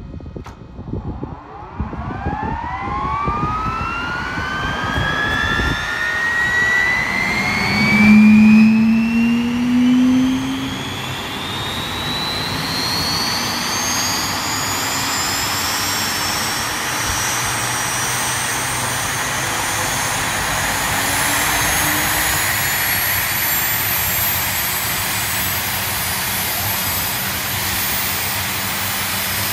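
Lycoming T55-L-714A turboshaft engine of a land-speed streamliner starting up. Its whine rises steadily in pitch as it spools up, with a brief loud low drone about eight seconds in. It then settles into a steady jet-like rush under a high whine that keeps creeping upward.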